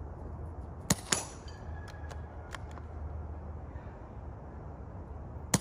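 Quiet rifle shot: a sharp crack about a second in, followed a quarter second later by a second crack. Another shot goes off right at the end.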